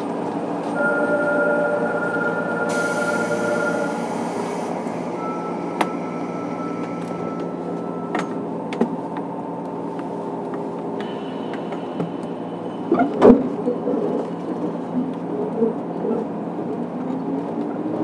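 JR Kyushu 103 series 1500 subseries electric train running through the subway tunnel, heard from inside the motor car: a steady rumble of motors and wheels, with a short hiss about three seconds in and a few sharp knocks about thirteen seconds in.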